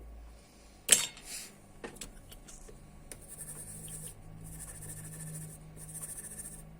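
A sharp knock about a second in, then repeated rubbing strokes as old thermal paste is wiped off a laptop's copper heatsink.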